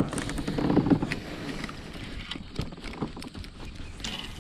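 Handling noise in a fishing kayak: irregular knocks, clicks and rustles of the rod, reel and gear against the hull, over a steady rush of water and air. It is louder in the first second.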